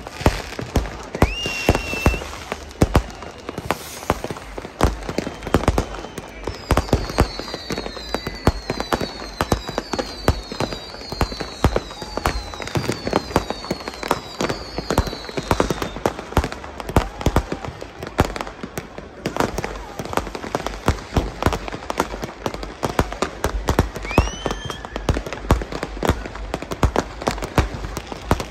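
Crowd-fired New Year's Eve fireworks: a dense, unbroken barrage of firecracker and rocket bangs. A whistle rises twice, once near the start and again near the end, and a run of short falling whistles repeats about one and a half times a second through the first half.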